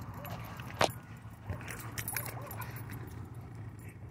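A dog's metal collar tags jingling and clinking as it plays on the dirt, with a sharp clink a little under a second in and a few faint barks.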